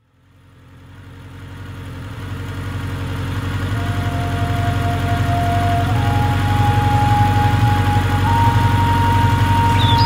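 Motorcycle engine idling steadily, fading in from silence over the first few seconds. A thin steady whine sits above it from about four seconds in and steps up in pitch twice.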